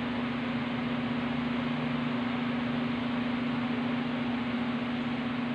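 Steady background hiss with a constant low hum, unchanging throughout.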